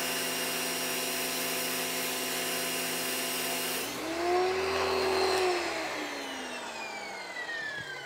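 Westinghouse ePX3000 electric pressure washer running, its motor and pump humming steadily under the hiss of a 15-degree nozzle spraying concrete. About four seconds in the spray hiss cuts off, the motor surges briefly and then winds down with falling pitch. The owner puts this down to a little air in the supply line interrupting the water feed and costing pressure.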